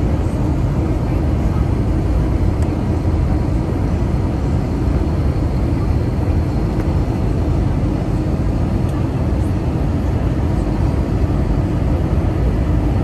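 Steady, deep cabin noise of an Airbus A321 airliner in flight on descent, from its jet engines and the air rushing past, heard from a window seat beside the wing.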